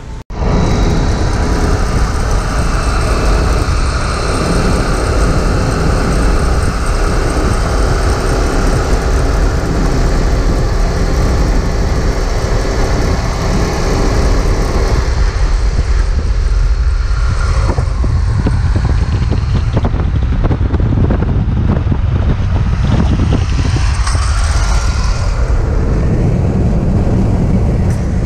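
Steady road and wind noise heard from inside a moving car at road speed.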